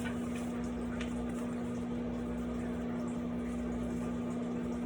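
Microwave oven running: a steady hum with one constant tone.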